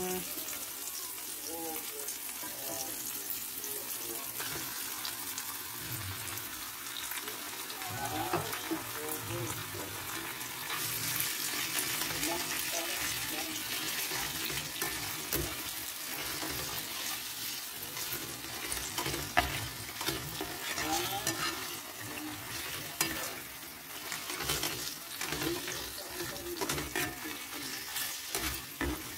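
Diced tomato, onion and garlic sizzling in oil in a nonstick frying pan, stirred and scraped with a plastic spatula with small clicks and scrapes. About eleven seconds in the sizzle grows louder and brighter as raw sliced pork goes into the hot pan.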